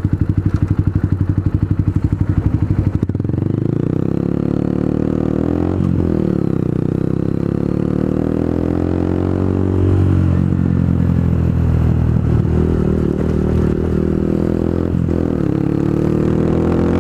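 A heavy engine running loudly and steadily, with a quick pulsing for the first few seconds and a few faint knocks and clatters.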